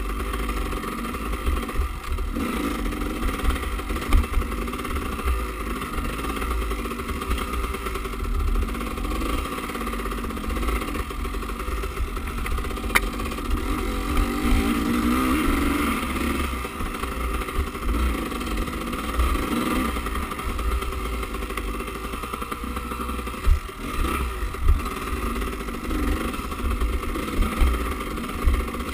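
Enduro motorcycle engine running as the bike is ridden along a dirt trail, the revs rising and falling with the throttle, under a heavy low rumble. A few sharp knocks from the rough ground come through now and then.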